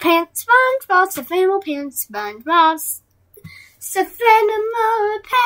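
A young person singing in a high voice: a string of short sung notes, a pause about three seconds in, then longer held notes near the end.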